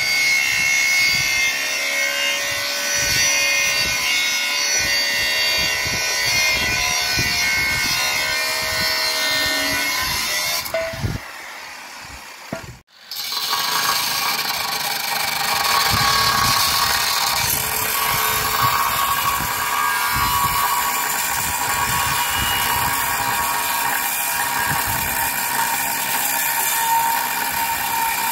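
Angle grinder with a cut-off disc cutting through steel beams: a steady high whine over the harsh hiss of the disc biting into the metal. It stops for about two seconds near the middle, then runs again.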